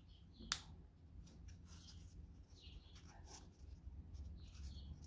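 Wooden puzzle-kit pieces of a model boat being handled and pressed into place: one sharp click about half a second in, then faint scratching and small clicks of wood rubbing on wood.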